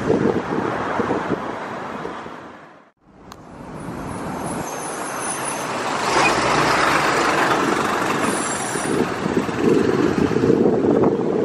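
Boeing 737-800's CFM56-7B jet engines running at taxi power, heard at a distance with wind buffeting the microphone. The sound dips to near silence about three seconds in, then swells back up, with a faint high whine in the middle.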